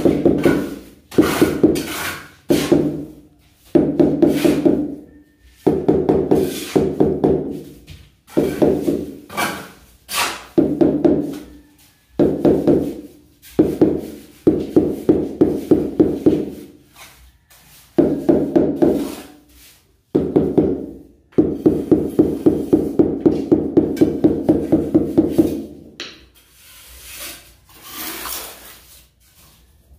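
Rubber mallet tapping a large floor tile down into its cement mortar bed: quick runs of dull knocks, about five a second, with short pauses between runs. Near the end the knocking stops and a trowel scrapes mortar along the tile's edge.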